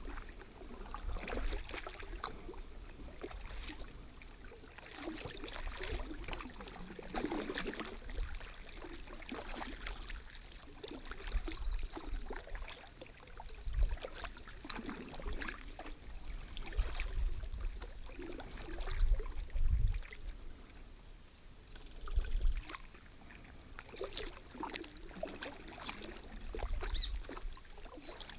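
Kayak paddle strokes dipping and splashing in calm creek water, with drips and small knocks between strokes and occasional low thumps.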